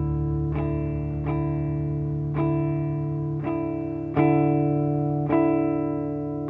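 Guitar through effects pedals picking single notes roughly once a second, each note ringing on, over a steady low drone.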